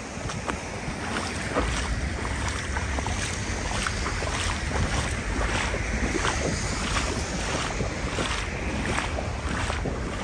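Floodwater sloshing and splashing in irregular bursts around the legs of someone wading through it, with a steady low wind rumble on the microphone.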